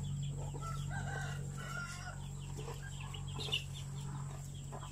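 Chickens clucking, with a few soft clicks and rustles from a cow feeding at a fodder trough, over a steady low hum.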